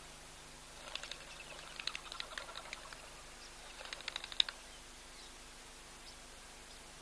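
A small bird chattering in two quick bouts of rapid clicking notes, the second shorter and ending in a sharp, louder note, over faint steady background hiss.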